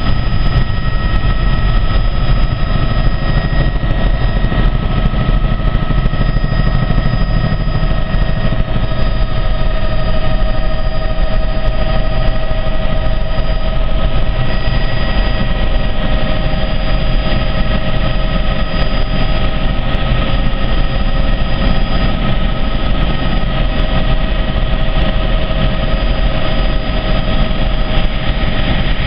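Helicopter in flight: loud, steady engine and rotor noise with several steady whining tones over it.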